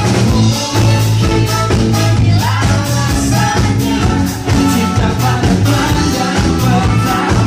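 Live rock band playing: electric guitar, bass guitar and drum kit keeping a steady beat, with a male lead singer.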